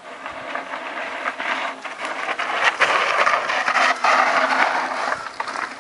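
Mountain-bike tyres skidding and crunching down a steep chute of loose dirt and gravel, a rough scraping that grows louder as the bike comes closer and is loudest about three to four seconds in.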